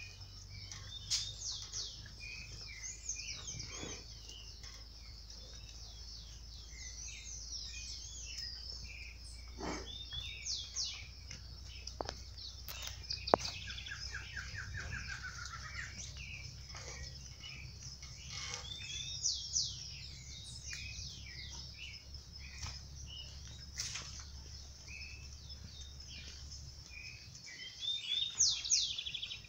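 Several birds chirping and singing, with many short calls and a quick trill-like run of notes about halfway through. A steady low hum runs underneath, and there is a single sharp click about 13 seconds in.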